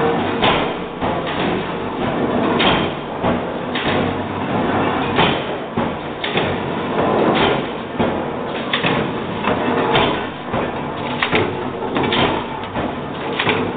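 Mechanical punch press stroking on stainless steel strip fed from a coil by an automatic feeder, a sharp clank about once a second over steady machine noise.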